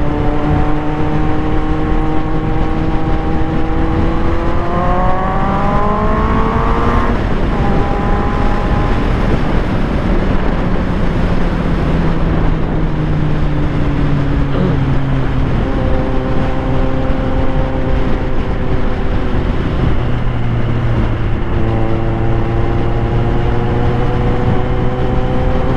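Large-displacement motorcycle engine pulling under acceleration, its note rising for about seven seconds and then dropping suddenly, followed by further rises and falls in pitch as the throttle and gears change, over a steady rush of wind and road noise.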